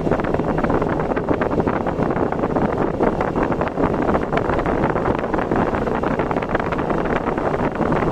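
Steady rush of wind and road noise from a vehicle travelling at speed, with wind buffeting the microphone.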